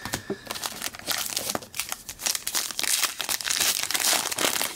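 Wrapper of a hockey card pack crinkling and tearing as it is pulled open by hand, a dense crackle that grows thicker and louder about halfway through.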